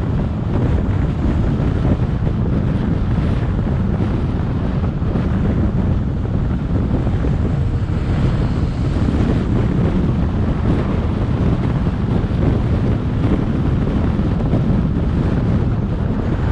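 Steady wind rumble on the microphone of a camera on a moving car, mixed with the car's road noise.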